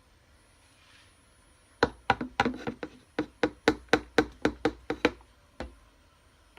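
A quick run of about fifteen sharp taps, a hard object striking something repeatedly for about three seconds, then one last tap.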